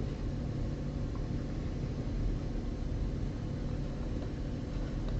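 Steady low hum with no distinct events, a mechanical drone under a faint hiss.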